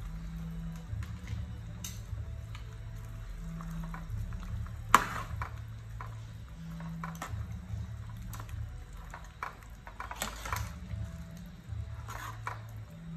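Metal ladle clinking and scraping against a steel soup pot while vegetables are stirred in the broth, with one sharp clink about five seconds in and a few smaller ones later. Soft low background music runs underneath.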